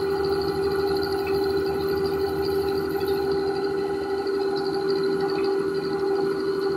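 A steady machine hum: one strong, unchanging mid-pitched tone with fainter higher overtones over a low rumble.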